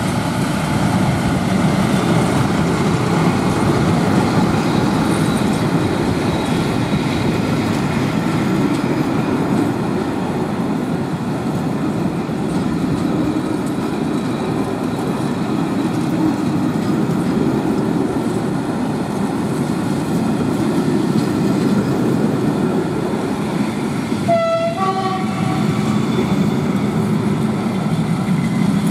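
SM42 diesel locomotive running past with its engine, then a line of passenger coaches rolling by with a steady rumble and wheel clatter. About three-quarters of the way through comes a short, high squealing tone.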